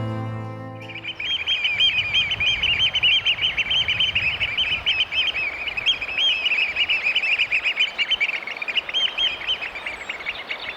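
A flock of Eurasian oystercatchers piping noisily, many shrill, rapidly repeated calls overlapping without a break.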